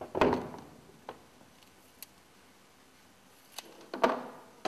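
Handling noise on a workbench: a knock just after the start with a brief ring, a few faint clicks, and another knock near the end as tools and valve parts are picked up and set down.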